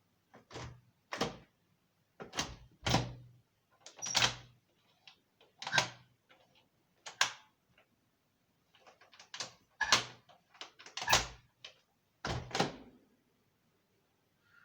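A dozen or so separate knocks and thuds at irregular intervals, some in quick pairs, with silence in between.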